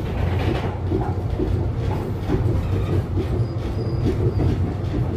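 Interior of a Duewag GT8 articulated tram running along the track: a steady low rumble of wheels on rails with frequent rattles and knocks from the car. A faint, thin high squeal comes in briefly about three and a half seconds in.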